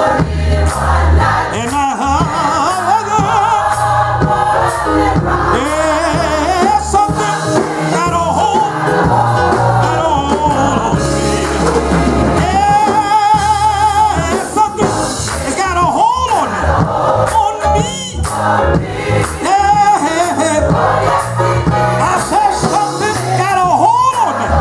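Live gospel song: a man singing lead into a microphone, backed by a church choir, with drums and clapping.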